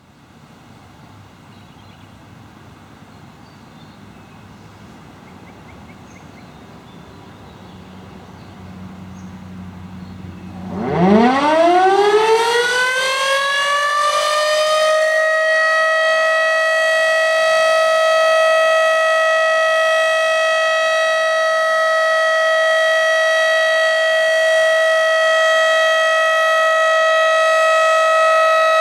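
Federal Signal Model 5B outdoor warning siren winding up. About eleven seconds in its tone sweeps sharply upward and within a few seconds settles into a loud, steady wail, the Alert signal.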